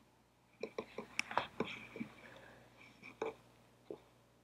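Several faint computer mouse clicks, scattered through the first four seconds, with a little soft muttering under them.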